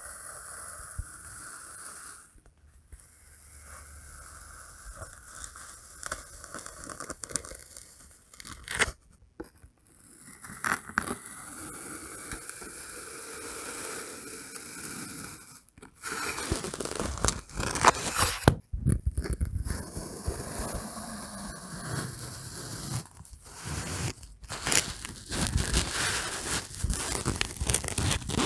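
Knife blade slicing and scraping through kinetic sand packed in small plastic bowls, close to the microphone: a grainy, crunchy scraping made of many small crackles. It comes in several separate cuts with brief breaks between them, and is louder in the second half.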